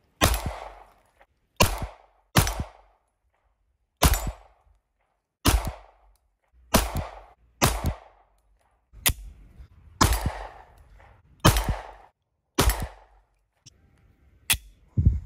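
Pistol with an XOST ported barrel fired about a dozen times in slow single shots, one to one and a half seconds apart, each shot sharp with a short echo tail.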